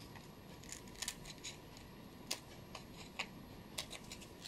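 Small scissors snipping the edges of a small blue cup-shaped craft piece: a handful of faint, sharp snips at irregular intervals.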